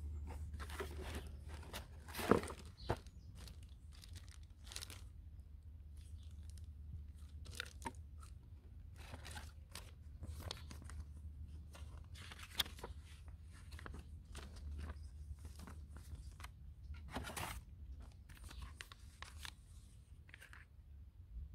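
Cardboard box and paper being handled: irregular rustling, crinkling and tapping as the instruction booklet and packing paper are lifted out and turned over, with a sharp knock about two seconds in and a steady low rumble underneath.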